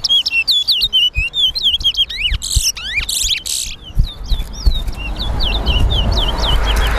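Towa-towa (chestnut-bellied seed finch) singing its competition song: a rapid run of short, high, hooked whistled notes, broken about halfway by a few harsher buzzy notes, then the whistled notes again.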